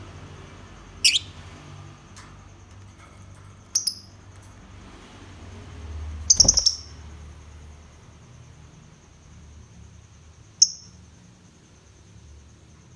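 Lovebird giving short, shrill, high-pitched chirps, four spaced a few seconds apart, the loudest a quick cluster of notes about six seconds in. A faint steady high whine runs underneath.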